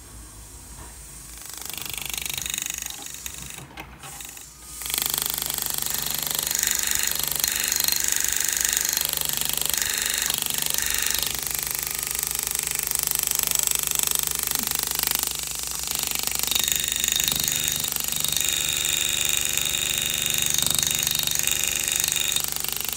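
Pneumatic GRS GraverMax hammer handpiece running, a fast steady buzzing rattle as it peens the metal walls of a channel setting down over a diamond and locks the loose stone tight. It starts about five seconds in after a quieter stretch with a light click.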